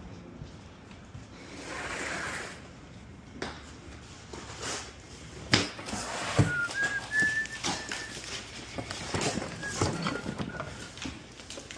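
Knocks and clunks of junk being handled and tossed, the loudest two about five and a half and six and a half seconds in, with short high chirps from about six and a half seconds in.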